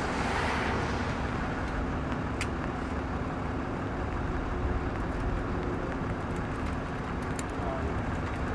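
Steady vehicle noise: a low engine rumble with a faint steady hum, and a couple of small clicks.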